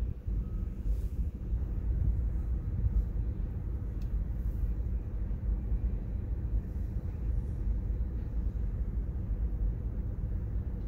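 Freight train of covered hoppers and boxcars rolling past, a steady low rumble from the cars moving over the rails.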